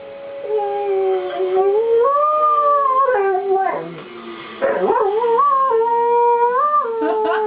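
Siberian husky howling along to a tornado warning siren: two long howls with a short break about halfway, each sliding up and down in pitch. A fainter steady siren tone sits underneath at the start.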